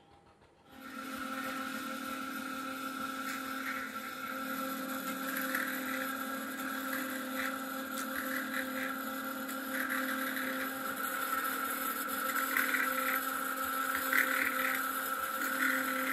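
Bench drill press motor running steadily, starting under a second in, while its twist bit cuts into the steel of a truck clutch disc with repeated short, higher-pitched bursts of cutting noise.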